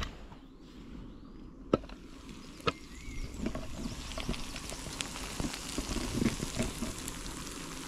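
A camping sandwich toaster clicks sharply twice as it is opened, then melted cheese sizzles and crackles on its hot pan, growing a little louder.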